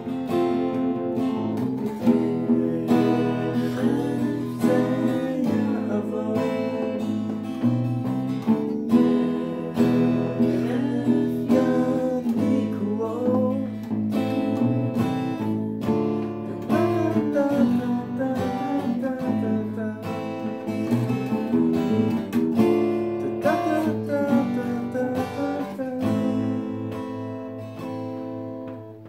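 Steel-string acoustic guitar strummed in chords together with an acoustic bass guitar playing a bass line.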